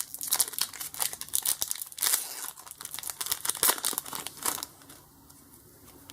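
Crinkling and tearing of a small Pokémon card pack's wrapper as it is torn open and crumpled: dense, irregular crackles that die away about four and a half seconds in.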